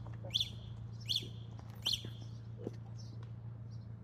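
A bird chirping in short sharp calls, evenly spaced about three quarters of a second apart, stopping about two seconds in, over a steady low hum.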